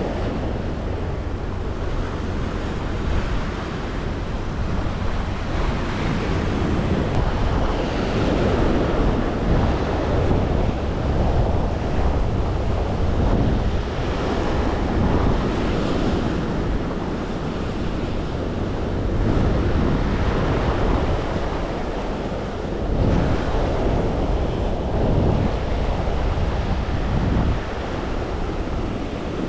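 Sea waves surging and washing against shore rocks, swelling and easing every few seconds, with wind rumbling on the microphone.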